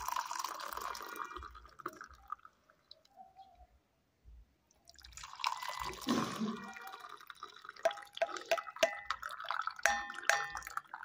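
Hot milky chai poured from a pan through a plastic tea strainer into glass tumblers: a splashing, trickling stream for about two seconds, a short pause near the middle, a second pour, then a run of drips and light ticks toward the end as the last of the tea runs through.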